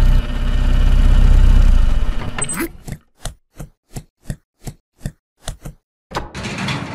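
Sound effects for a cartoon delivery van: the engine's low rumble dies away, then a run of short, even footsteps, about three a second. Near the end comes a longer noisy sound.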